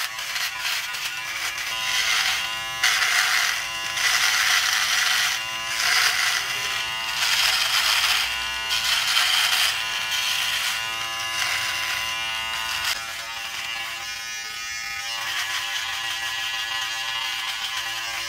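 Nova NG 1153 trimmer's micro-shaver attachment buzzing as it is run over facial stubble. The cutting noise swells and eases with each pass during the first half, then settles to a steadier buzz.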